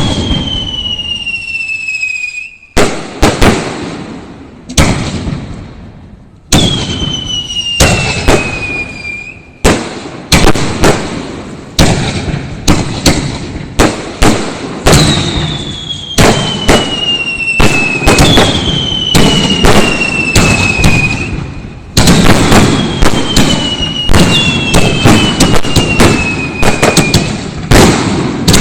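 Fireworks display: a rapid run of sharp bangs from bursting shells, with several high whistles that slide down in pitch over about two seconds each.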